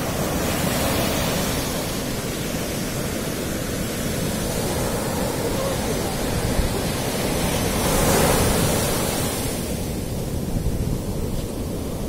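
Sea surf breaking and washing up the sand: a steady rush of waves that swells and eases, loudest about eight seconds in.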